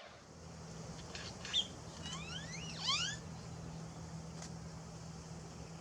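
A bird calling: a sharp high note, then a quick run of rising whistled notes. A steady low hum runs underneath.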